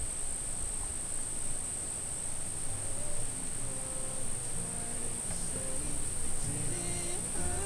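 A steady high-pitched hum runs throughout. Soft sustained notes of the film's score fade in under it from about three seconds and grow clearer near the end.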